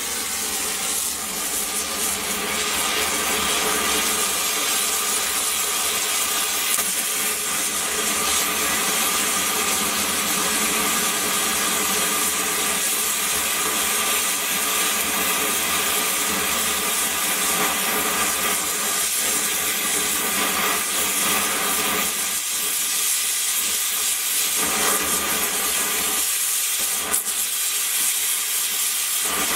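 Gas torch flame hissing steadily, growing louder over the first few seconds, as it remelts the top of a cast 18-karat gold spike to fill a void.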